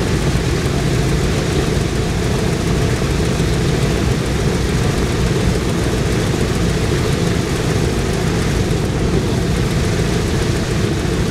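Boeing B-17 Flying Fortress's four Wright R-1820 Cyclone nine-cylinder radial engines idling together, running steadily with no change in speed.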